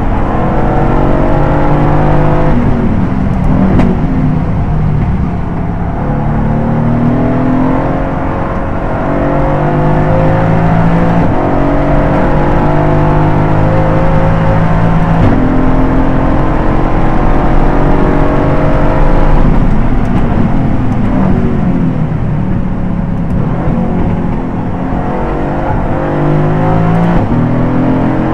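Aston Martin GT4 race car's V8 engine under hard acceleration, its pitch climbing through the revs and dropping back at each upshift. Twice, about three seconds in and again around twenty seconds in, the note falls away and turns uneven under braking and downshifts before climbing again.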